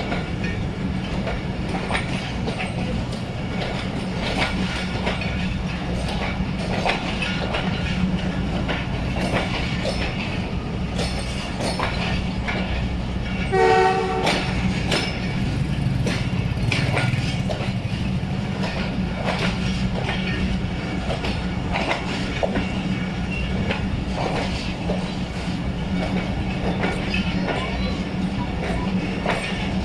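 A passenger train running along the track with a steady rumble and frequent knocks of the wheels over the rails. About 14 seconds in, the ZCU 20 diesel locomotive gives one short, chord-like horn blast.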